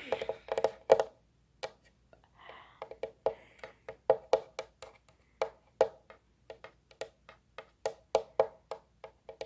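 Irregular sharp taps, several a second, each with a short hollow pitched ring, like fingers or nails tapping on a hard hollow object.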